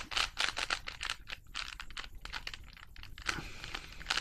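Plastic Rubik's cube being twisted by hand, its layers clicking and rattling in quick runs of clicks.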